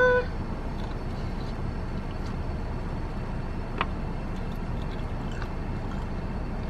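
Steady low rumble of a car idling, heard from inside the cabin, with faint chewing and a few small clicks of eating fried chicken. A short closed-mouth "mm" right at the start.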